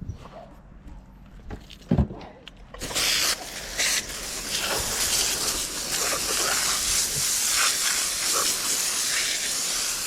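Running water spraying, which starts suddenly about three seconds in and keeps going steadily: a hose or tap rinsing a freshly cut fish fillet. A single knock comes just before it.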